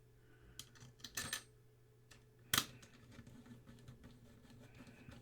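Small metallic clicks and clinks of a screw being worked and tightened on a Commodore Datassette tape deck: a quick cluster just after a second in and one sharper click about two and a half seconds in, over a steady low hum.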